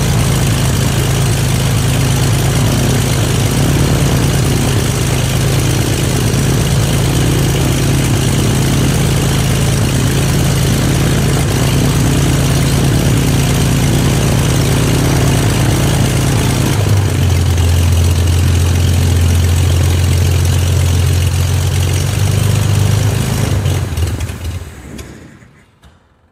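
Corvair 2850 air-cooled flat-six aircraft engine and propeller running smoothly on a ground run. The pitch steps down about two-thirds of the way through as it is throttled back, then the engine is shut off and the sound dies away near the end.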